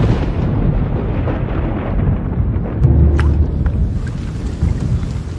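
Thunder rumbling, starting suddenly and rolling on loud and low.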